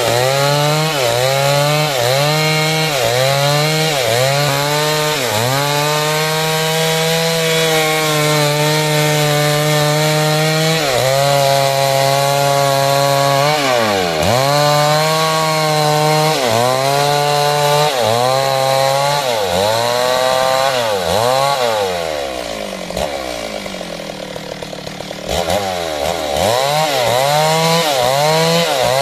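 Two-stroke chainsaw cutting through timber under load, its engine pitch dipping and recovering about once a second as the chain bites. About three-quarters of the way through it drops to a lower, quieter speed for a few seconds, then revs back up and keeps cutting.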